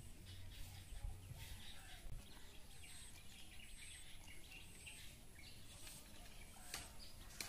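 Faint open-air ambience with birds chirping, and a couple of sharp clicks near the end.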